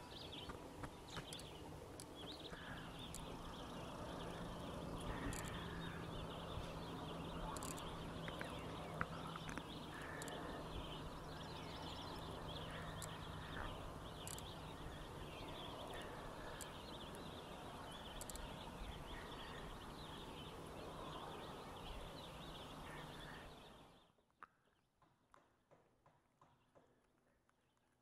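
Faint common loon calls over a steady outdoor hiss, which falls to near silence about 24 seconds in.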